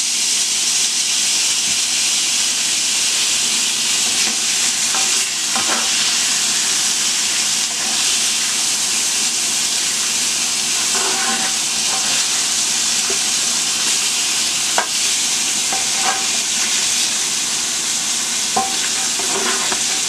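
T-bone steak sizzling steadily as it sears in avocado oil in a hot cast iron skillet, a continuous high frying hiss. A few light clicks and pops stand out here and there.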